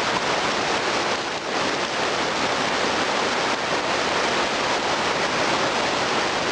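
Steady rushing of river water, the Kamweti River running fast below its waterfall.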